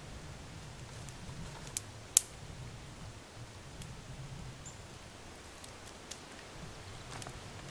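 A few sharp clicks or pops over a low steady background. The loudest comes a little after two seconds in, with a smaller one just before it.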